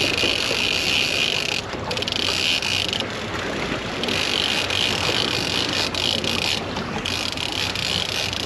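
Two-speed fishing reel cranked in low gear to bring in a hooked fish, its gears giving a high, fast ratcheting whir in long stretches with short pauses between turns of the handle.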